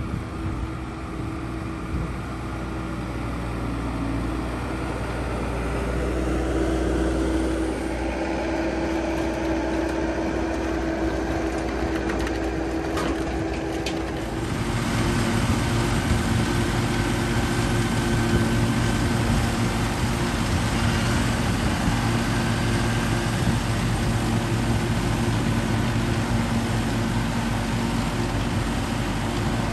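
Diesel skid-steer loader running as it carries a pallet. About halfway through this gives way to a louder, steadier tractor engine driving a pull-type forage chopper as it chops standing corn for silage.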